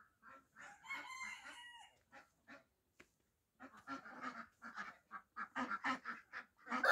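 Backyard poultry calling: a rooster crows about a second in, then a quick run of short calls from the flock over the last three seconds.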